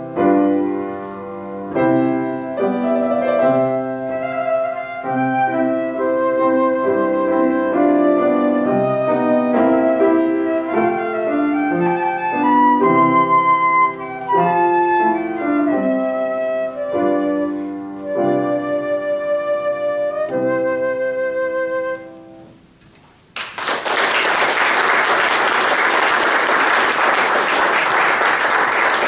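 Concert flute played with Yamaha upright piano accompaniment, the piece ending about 22 seconds in. After a short pause, an audience applauds.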